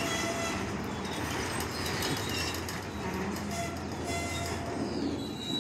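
Freight train of autorack cars rolling slowly through a grade crossing as it slows toward a stop, a steady rumble of wheels on rail.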